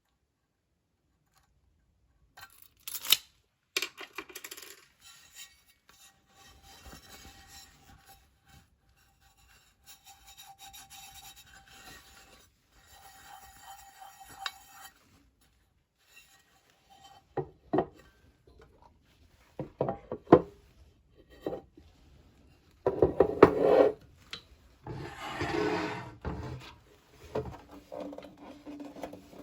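Hard objects being handled: rubbing and scraping with sharp knocks. Louder clattering and bumping comes in the second half.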